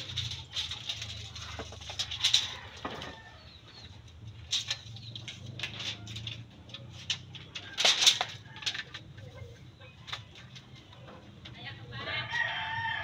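Bamboo being split and stripped with a blade: irregular sharp cracks, snaps and scrapes, loudest about two and eight seconds in. A bird calls several times near the end.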